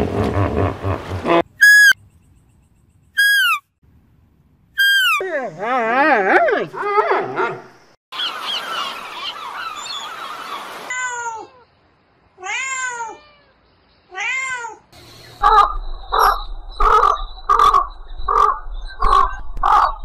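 A string of different animal calls edited one after another: a hippo's low call in the first second or so, then three high falling calls, a warbling trill, a gull colony's overlapping calls and a run of falling gull cries, and in the last few seconds a rhythmic series of pulsed calls about two a second over a low hum.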